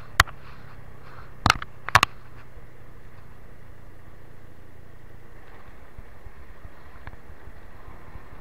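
Motorcycle riding along a road: steady engine and road noise, broken in the first two seconds by three sharp knocks.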